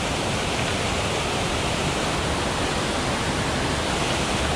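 Fast whitewater mountain creek rushing over rocks and logs: a loud, steady, unbroken rush of water.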